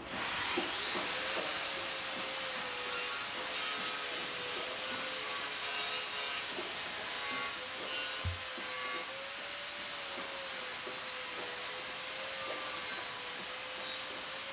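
A small electric motor or power tool spins up over about a second and a half, then runs steadily with a high whine. A short low thump comes about eight seconds in.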